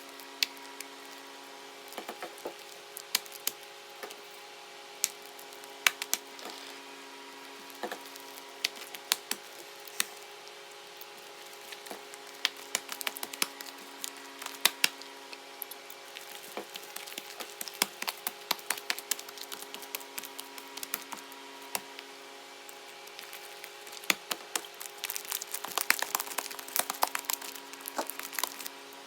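Slime being handled, giving irregular sharp crackling clicks and pops that come thickest near the end, over a faint steady hum.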